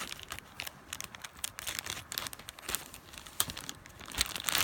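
Plastic toy wrapper being torn open and crinkled by hand: an irregular run of crackles, with a louder burst of rustling near the end.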